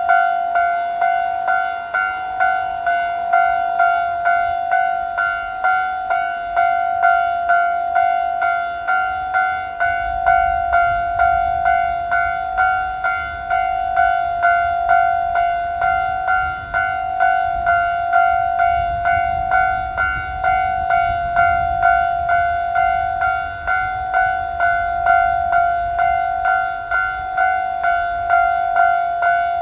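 Japanese level-crossing warning bell ringing its steady "kan-kan-kan", a little over two strokes a second. From about a third of the way in, the low rumble of a passing train rises under it and is loudest around two-thirds of the way through.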